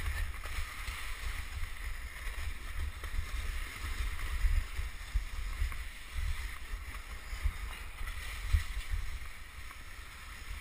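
Wooden krňačka sled sliding fast downhill on packed snow: a steady hiss of the runners over the snow over a low, uneven rumble, with a few sharp knocks as it hits bumps.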